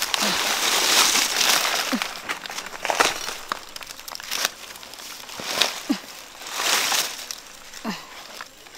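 Dry banana leaves crinkling and crackling as a banana bunch is handled and its hands of fruit are broken off the stalk, with sharp snaps and a few short squeaks.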